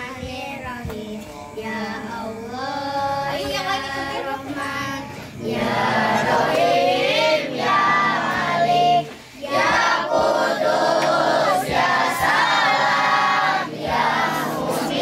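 Two young girls singing together into a handheld microphone through a sound system. The singing grows clearly louder about five seconds in and breaks off briefly near nine seconds before going on.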